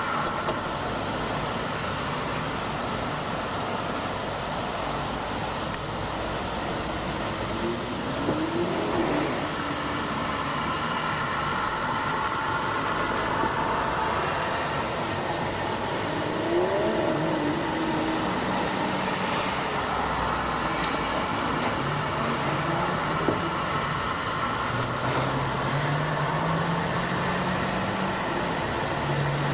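Road traffic: car engines running as cars drive by, with a few brief rises and falls in engine pitch. Near the end one engine's pitch rises slowly.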